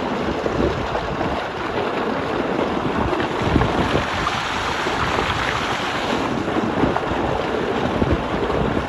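Water gushing out of a tube well's large outlet pipe into a concrete tank: a steady heavy rush and churning splash.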